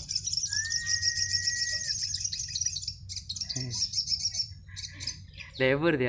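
Caged sogon (crimson sunbirds) twittering in a rapid, high-pitched stream, densest in the first half. A single steady whistled note lasting about a second and a half sounds near the start.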